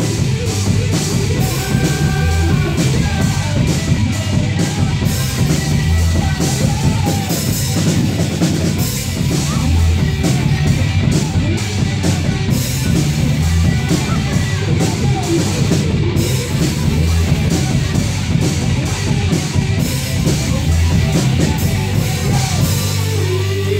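Live rock band playing electric guitars and a drum kit through an amp, with a vocalist singing into a microphone.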